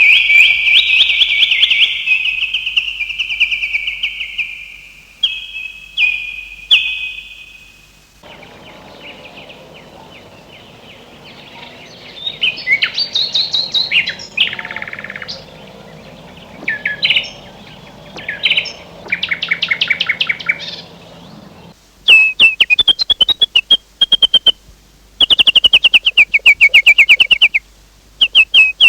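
Small songbirds chirping and trilling in a sequence of separate recordings. A loud, high trill fades away over the first few seconds. From about eight seconds in, quieter chirps and short song phrases sit over a faint background hum. Near the end come loud, rapid runs of chirps.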